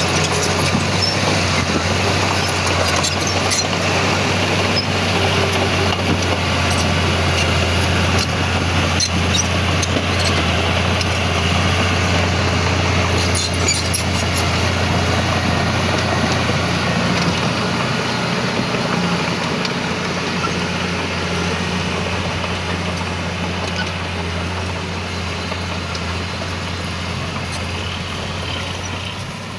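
Heavy diesel earthmoving machinery running steadily, with scattered sharp clanks in the first half. The engine eases off slightly in the last third.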